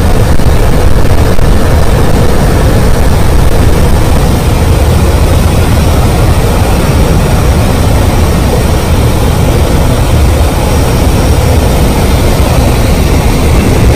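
Loud, steady rush of wind and aircraft engine noise at an open jump door in flight.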